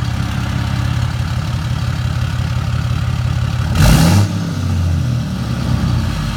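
Dodge Ram 3500 pickup's engine idling, heard at the exhaust tip as a steady low rumble. About four seconds in there is a brief, louder rush of noise.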